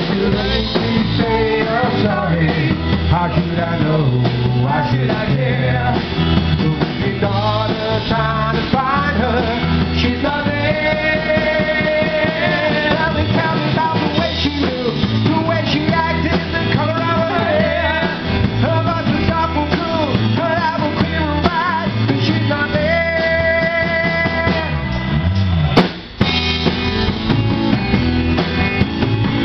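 Live rock band playing: a drum kit and electric guitar under a woman's lead vocal, with some long held sung notes. A sharp click and a brief dropout in the sound come a few seconds before the end.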